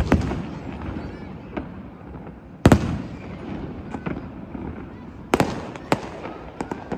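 Fireworks display: aerial shells bursting with sharp bangs that ring out briefly. There is one at the start, the loudest about two and a half seconds in, two more around five and a half and six seconds, and smaller pops in between.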